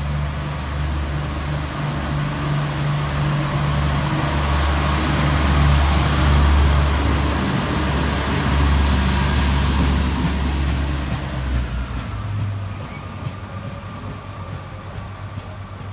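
Class 144 Pacer diesel multiple unit pulling away from the platform and passing close by: a deep underfloor diesel engine drone with wheel and rail noise, loudest as the carriages go past. About twelve seconds in the engine drone drops away and the sound fades as the unit moves off down the line.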